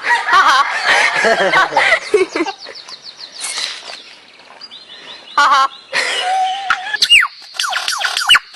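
Birds calling: a string of varied chirps, whistles and squawks, some wavering in pitch, with a quieter gap partway through.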